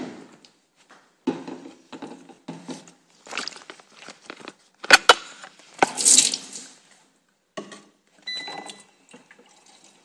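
Water splashing from a bottle-filling station into a plastic bottle, in irregular bursts mixed with knocks from handling, and a sharp click about five seconds in.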